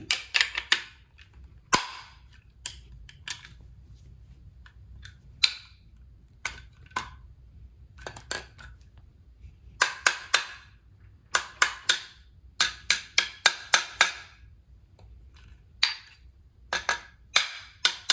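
Parts of a VZ58 rifle being handled and fitted back together: a scattering of short, sharp clicks and clacks, coming in quick runs in the second half.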